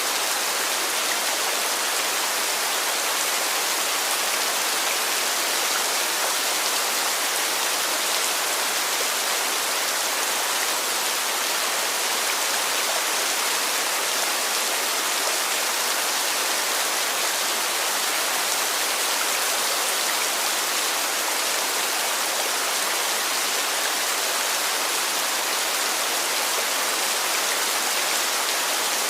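Heavy rain falling steadily, a dense even hiss of drops with no pauses or changes.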